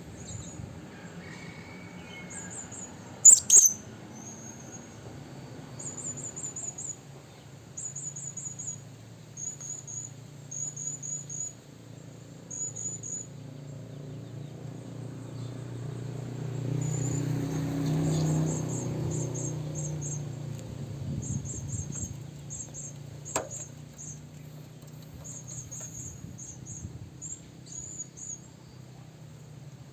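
Blue-crowned hanging parrot (serindit) calling: short bursts of very high, thin chirps repeated every second or two. There is a sharp click about three seconds in, and a low rumble swells and fades around the middle.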